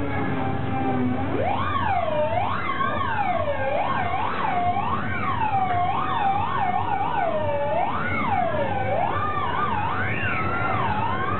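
Theremin played by people waving their arms near it, its tone gliding up and down in quick, wavering swoops like a siren. It holds a low, steady note for about the first second, then sweeps up sharply and keeps swooping.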